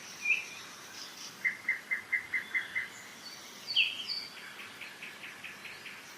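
Several songbirds singing in a spring forest. One bird repeats a short chirp, another gives a quick run of about seven even notes about a second and a half in, and a fast series of faint notes follows in the second half, all over the steady hiss of a mountain river.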